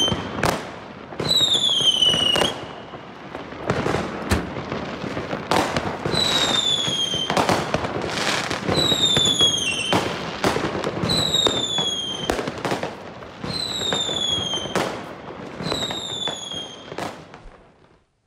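New Year's Eve fireworks: about seven whistling fireworks, each a falling whistle about a second long, sound one after another among repeated bangs and crackling. The sound dies away near the end.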